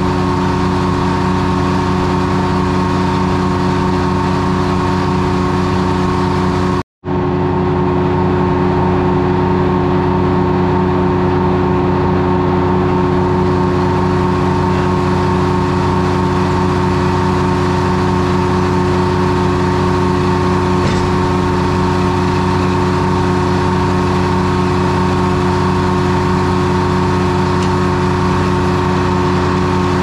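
Detroit Diesel 3-71 two-stroke three-cylinder diesel power unit running steadily at constant speed, with a brief dropout about seven seconds in.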